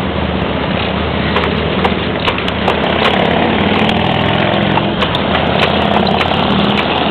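An engine running steadily at idle, with irregular sharp clicks and knocks over it.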